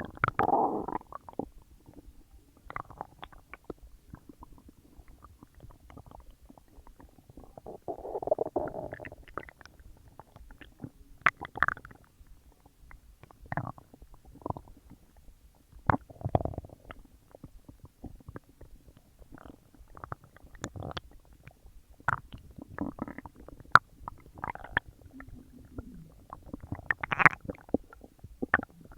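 A human stomach gurgling and rumbling as it digests a large meal: irregular gurgles and squeaky pops, with longer rumbles at the start, about eight seconds in, about sixteen seconds in and near the end.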